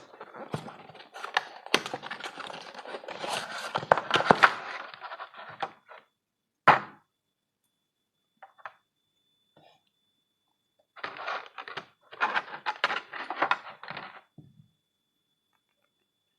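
Packaging and items being handled: rustling and crinkling mixed with taps and clicks, in two stretches with a single sharp knock between them.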